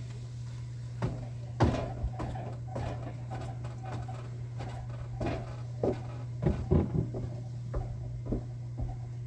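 Irregular knocks, clicks and rustling from things being handled, the sharpest about a second and a half in and a cluster near the seven-second mark, over a steady low hum.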